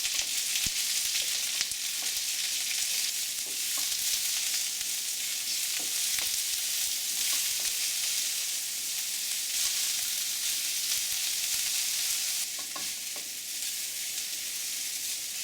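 Sliced onion sizzling in hot mustard oil in a wok with mustard seeds and dry red chilies, being stirred, with scattered small clicks through a steady high sizzle. The sizzle eases a little near the end.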